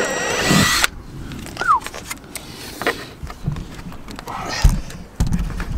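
Cordless drill running at speed as it bores a bolt hole up into the plastic rear diffuser and bumper, a steady whine that cuts off abruptly under a second in. After it come scattered clicks, a short falling squeak and a couple of dull thumps from handling.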